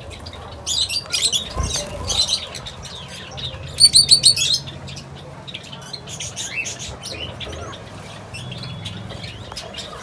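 Small cage birds, Gouldian finches among them, chirping in an aviary: scattered high chirps, with a louder run of quick repeated chirps about four seconds in. A faint low hum runs underneath.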